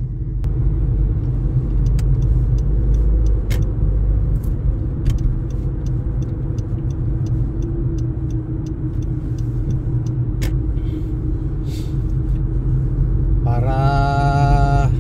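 Steady road and engine noise inside a moving car's cabin at highway speed: a low, even rumble with a few faint clicks.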